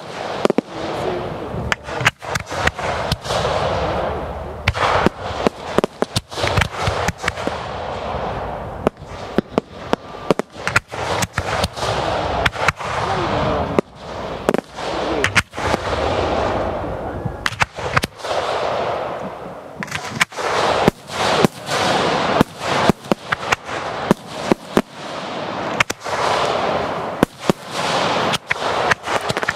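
A fireworks display fired at close range: a dense, continuous run of sharp bangs, clustered several a second at times, over a steady crackling hiss.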